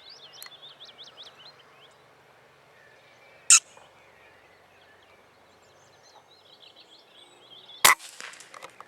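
Small birds chirping, broken by two sharp cracks: a short one about three and a half seconds in, and a louder one with a brief ringing tail near the end.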